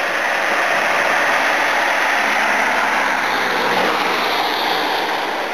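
A Volkswagen car passing close by on a wet road: a loud hiss of tyres on wet asphalt that swells as it draws level and eases as it goes by, with its engine faintly under it.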